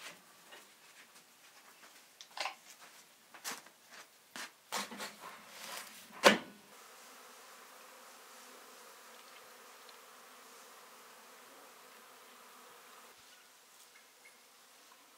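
Honeybees buzzing steadily around a hive entrance, starting about halfway through and fading near the end. Before that comes a series of sharp clicks and knocks, the loudest just before the buzzing begins.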